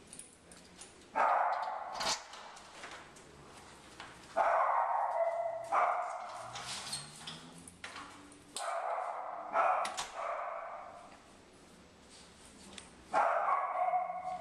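A dog barking in several loud bursts, with short quieter spells between them.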